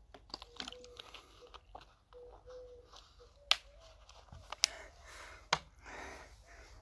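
Plastic water bottle crinkling and its cap being screwed shut: light handling clicks, then three sharp cracks about a second apart.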